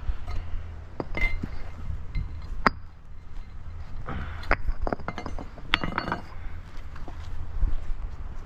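Concrete pavers being lifted and stacked, knocking against each other in sharp, irregular clinks and clacks, over a steady low rumble.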